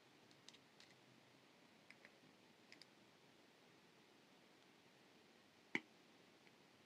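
Small clicks of jewellery pliers on thin wire as a wire loop is bent: a few faint ticks in the first three seconds, then one sharper click late on.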